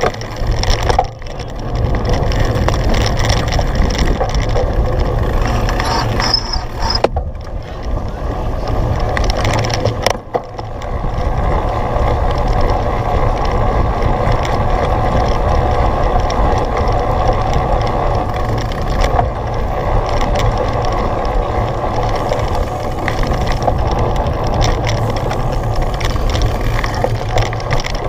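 Steady rushing and rattling of a cyclocross bike ridden at race pace over muddy ground, with wind on the microphone, easing briefly three times.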